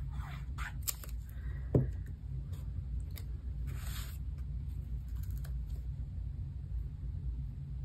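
Hands handling cardstock and a tape runner: short rustles and clicks as adhesive is run across the paper, a single thump about two seconds in, then a brief rub of paper near four seconds as a square of cardstock is laid down and pressed.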